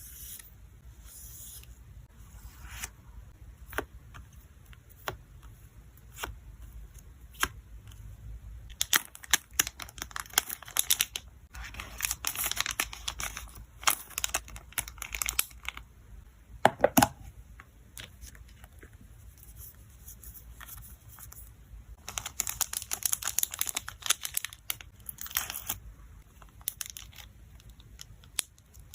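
Hand-packing of photocards: plastic sleeves and packaging crinkling and tearing in two longer spells, between scattered small clicks and taps as the items are handled.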